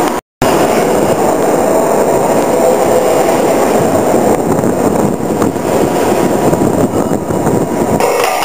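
Drilling rig machinery running: a loud, steady mechanical din without a clear rhythm. The sound cuts out completely for a moment shortly after the start.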